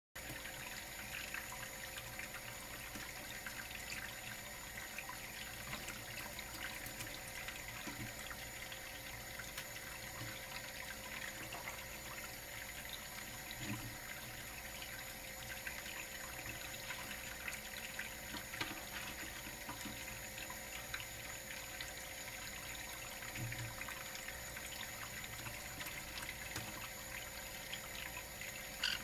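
A thin stream of tap water runs steadily onto a plastic plate in a stainless steel sink, splashing as a green-cheeked conure bathes in it. A brief high-pitched sound comes near the end.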